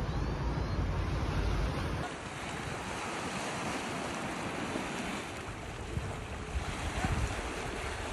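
Sea waves washing on the shore, with wind buffeting the microphone; the low wind rumble drops about two seconds in, leaving a lighter wash of surf.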